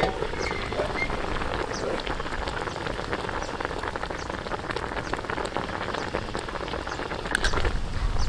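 An aluminium pot lid clanks as it is lifted off a wok. Then pig stomach braising in coconut juice bubbles and crackles steadily, with a few clinks of a metal ladle against the wok near the end.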